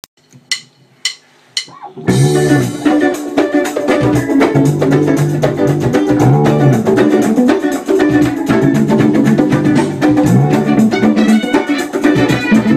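Three sharp clicks count in, then about two seconds in a band starts playing together: electric guitar, bass guitar, electronic drum kit and congas in a steady dance groove with a repeating bass line.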